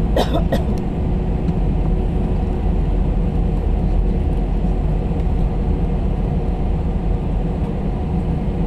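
Steady low rumble of an Airbus A319 airliner heard from inside the passenger cabin, with a faint steady hum under it. A brief rattle of a few clicks comes just after the start.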